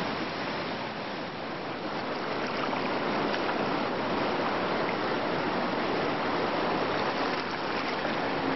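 Rushing water of river rapids: a steady, even wash of white-water noise that builds slightly.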